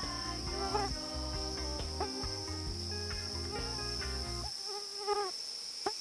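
Steady high-pitched drone of a rainforest insect chorus, with background music of sustained notes over a low bass line that drops out for about a second and a half near the end.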